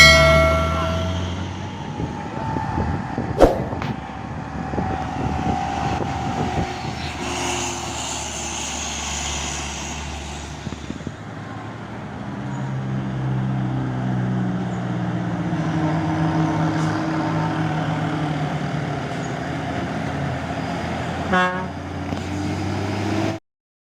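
Heavy truck diesel engines running under load on a steep uphill grade, with passing road traffic; a vehicle horn toots right at the start. The sound cuts out briefly just before the end.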